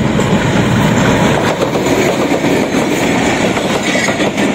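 Pakistan Railways diesel-hauled passenger train passing close by: a steady loud rumble of the locomotive and coaches, with faint clicks of the wheels running over the track.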